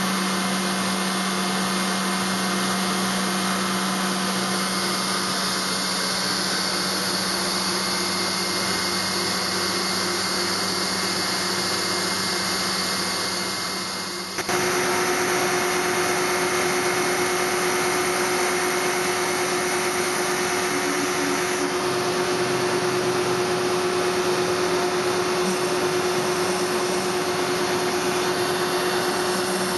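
Newing Hall Pantocut CNC machine's spindle running as its cutter carves Portland stone: a steady machine whine over a noisy hiss. About halfway through, the sound changes abruptly to a slightly different steady pitch.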